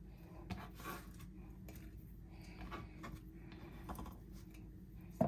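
Faint scattered taps and clicks of chopped ingredients and utensils being handled on a kitchen counter, over a steady low hum, with one sharp knock near the end.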